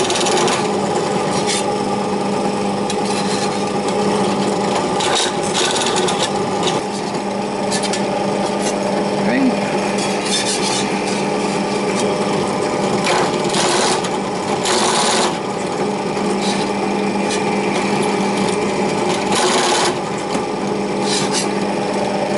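Bench drill press motor running with a steady hum while a step drill deburrs holes in stainless steel sheet, giving a series of brief scraping cuts every second or few as the sheet is pressed to the bit.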